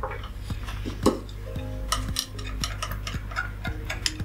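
Long cooking chopsticks stirring and tapping in a metal frying pan as honey is mixed into teriyaki sauce: a run of irregular small clicks over a steady low hum.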